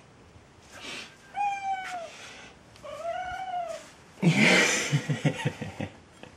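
A black domestic cat meows twice, two arching calls about a second apart, begging for food. A louder rough, rasping noise follows for nearly two seconds.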